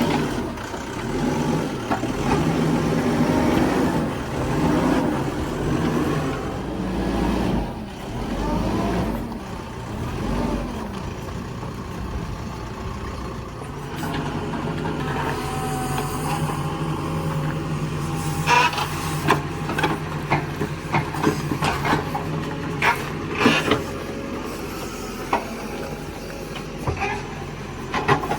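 A backhoe loader's diesel engine working, surging up and down for the first several seconds and then running steadier. In the last third there are repeated sharp clanks and knocks.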